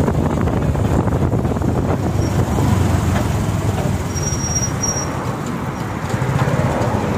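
Motorcycle engine running steadily while riding along a road, with wind rushing over the phone's microphone.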